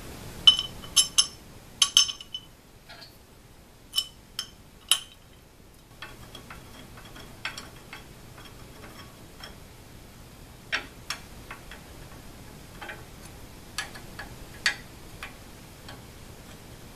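Metal clicks and clinks as an aluminium plate is set in place and a long hex key works the screws that fasten it to a ball screw nut. A cluster of sharp clinks comes in the first five seconds, then lighter, scattered ticks.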